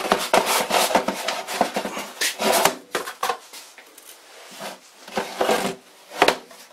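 A blue plastic tool case scraping and rubbing as it slides out of its cardboard box, then a few knocks as it is set down and turned over on a wooden workbench.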